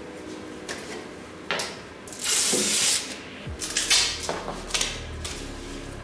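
Hands working on the dust port of a Laguna band saw's cabinet: rustling and a few sharp plastic knocks and clicks, with a hissing scrape lasting under a second about two seconds in.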